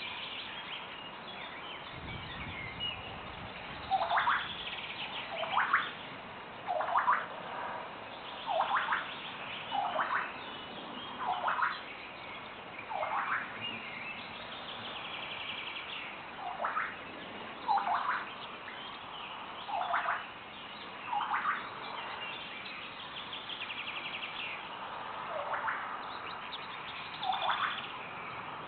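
European honey buzzard giving a series of short, falling whistled calls, about one every second and a half with a couple of pauses. Small songbirds twitter faintly behind it.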